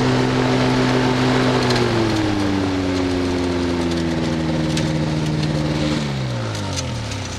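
Small ultralight aircraft engine running at low throttle, its pitch stepping down about two seconds in. About six seconds in it is shut off and winds down to a stop near the end.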